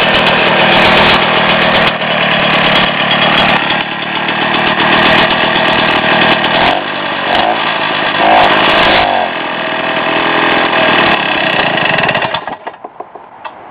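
Rebuilt 1967 Rotax 247cc single-cylinder two-stroke snowmobile engine running on a test stand. Its speed rises and falls in the middle as the carburetor throttle is worked by hand, and it stops near the end. The carburetor still needs a little adjustment.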